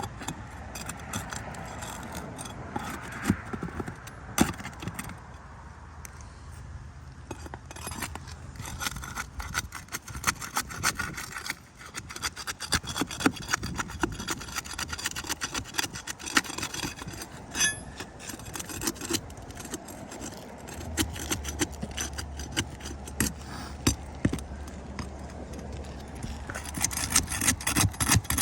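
Hand tools scraping, cutting and clicking against asphalt shingles during roof tear-off, a dense irregular run of scrapes and sharp ticks. A low steady hum comes in about two-thirds of the way through.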